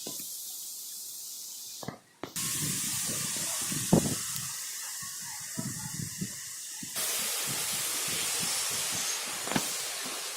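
Kalbaishakhi (nor'wester) storm: a steady rain-like hiss with gusting wind rumbling low down. The sound cuts out for a moment about two seconds in and shifts abruptly about seven seconds in.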